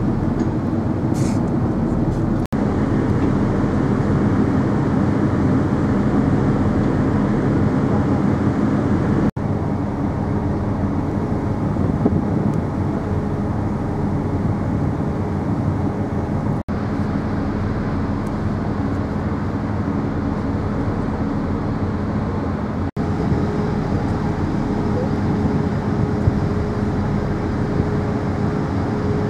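Steady low rumble of the MV Normandie ferry under way, with a faint engine hum, broken by four momentary dropouts.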